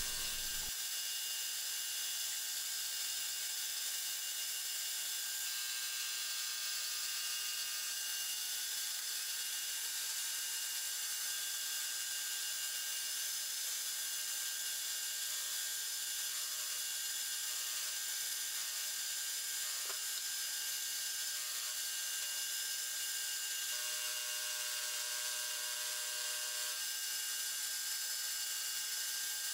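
Bridgeport-type vertical milling machine running, its chamfering tool cutting the edges of a steel angle plate: a steady, high-pitched machine whine with a few tones shifting now and then.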